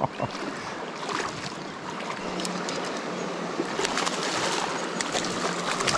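A shallow stream running, a steady rush of water that grows a little louder in the second half, with light splashing in the water.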